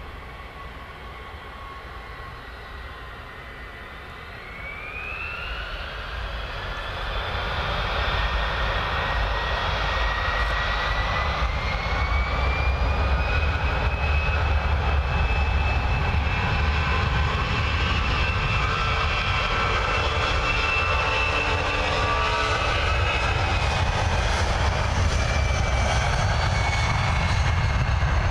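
Boeing 757-200's twin jet engines spooling up to takeoff thrust. A whine rises in pitch about four seconds in and again around ten seconds in, while the sound grows much louder and then holds steady at full power for the start of the takeoff roll.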